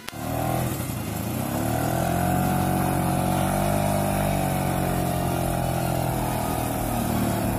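A small old Vespa scooter engine on a homemade cargo tricycle, running under way. Its pitch rises over the first couple of seconds, holds steady, then eases a little near the end.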